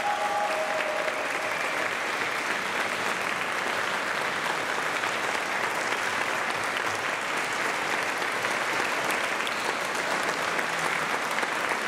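Small audience applauding steadily.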